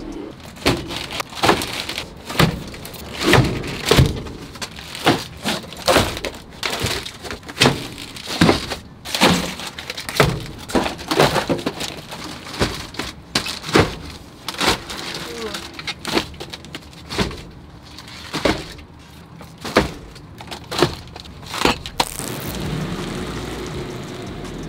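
Cases of canned drinks and bottled soda being set down and shoved into a van's cargo area: an irregular string of knocks, thuds and rattles, at times several a second. Near the end the knocking stops and a steady background noise takes over.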